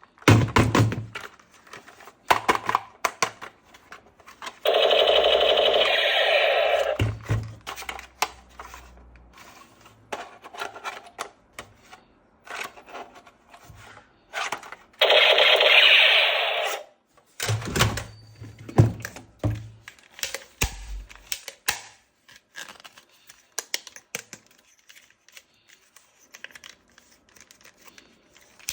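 Plastic toy parts and packaging being handled and unpacked: many small clicks, snaps and knocks, with two louder sounds about two seconds long, one about five seconds in and one about fifteen seconds in.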